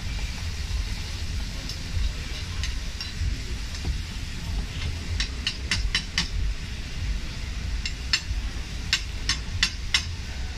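A steady low rumble with sharp clinks over it, in a quick run of four or five a little past halfway and another run of about five near the end.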